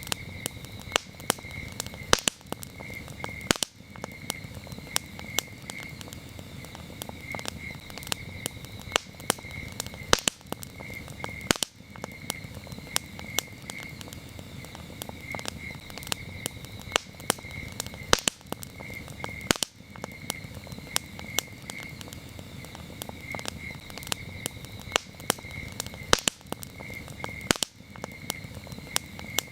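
A campfire crackling, with frequent sharp pops and snaps over a steady low rush, while crickets chirp in even, repeating pulses.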